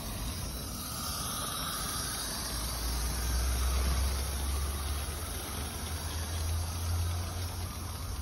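Small live-steam garden railway locomotive running past with a steady hiss over a low rumble, loudest about four seconds in as it passes closest.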